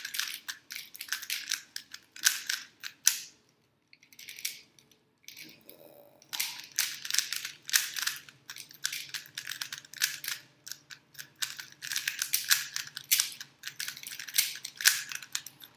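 A Rubik's cube being turned quickly by hand: a fast, irregular run of plastic clicks and clacks as the layers snap round. The turning pauses for about three seconds a few seconds in, then picks up again.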